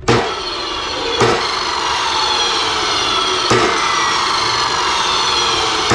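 Hercules abrasive chop saw switched on and running free with its blade clear of the work: the motor starts abruptly and runs with a loud steady whine. Two sharp knocks come about a second in and again a few seconds later.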